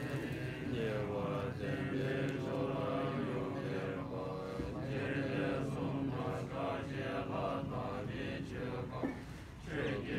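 Group of Tibetan Buddhist monks chanting a prayer text together in a low, steady recitation, with a brief pause for breath near the end before the chant picks up again.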